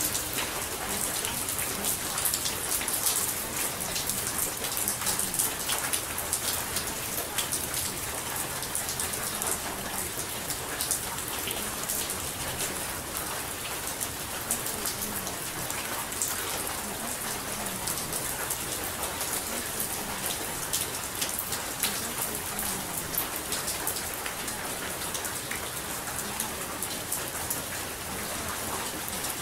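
Steady rain falling, a dense even hiss with many small drop ticks.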